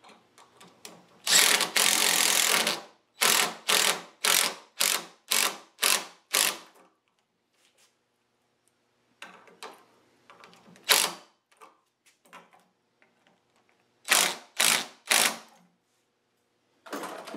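Cordless drill driving bolts into nylock nuts to tighten them down. There is one longer run of the drill, then short bursts about twice a second, and two more groups of short bursts later on.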